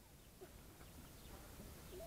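Near silence: a few faint, short bird chirps over quiet outdoor background.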